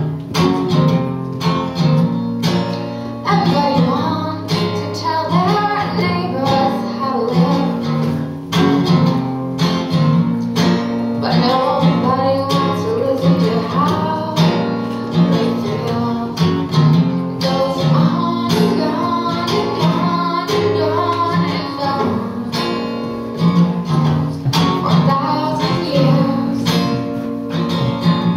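Acoustic guitar strummed steadily while a woman sings along.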